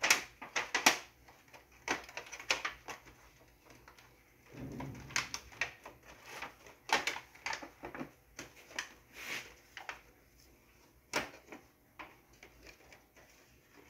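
Aluminium foil pan lid crinkling and clicking as it is handled and pressed down onto a disposable aluminium pan, in a string of irregular sharp clicks with a short rustle about five seconds in.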